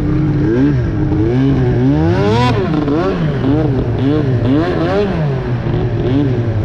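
Arctic Cat CFR 1000R snowmobile's two-stroke twin through a loud aftermarket GGB exhaust, the throttle blipped over and over so the engine revs up and falls back about twice a second. The highest rev comes about two and a half seconds in.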